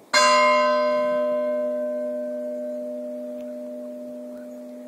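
A bronze church bell struck once, then ringing on and slowly dying away, its higher tones fading first: the half-hour time signal.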